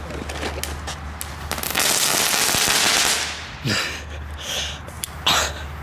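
Category 1 crackling fireworks going off on the ground. Scattered sharp cracks build into about a second and a half of dense crackling, followed by a few louder separate pops.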